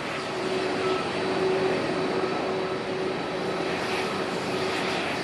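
Jet engines of a Solaseed Air Boeing 737-800 running as it moves along the runway: a steady drone with a held tone.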